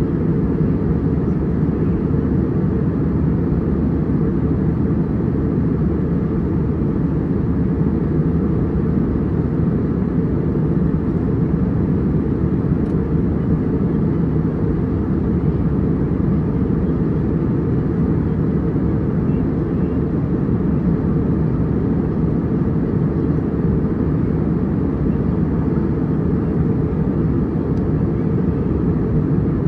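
Steady in-flight cabin noise of an airliner: a deep, even rumble of engines and rushing air that does not change.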